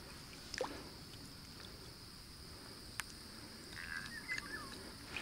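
Faint water sloshing as a small common carp is handled and unhooked in shallow water, with one sharp click about three seconds in.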